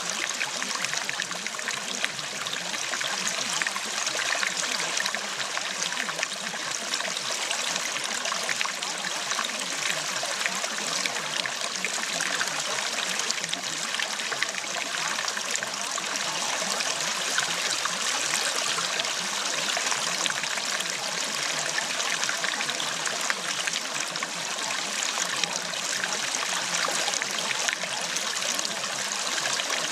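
Steady sound of running water, like a flowing stream, unchanging throughout with no tones or voices standing out.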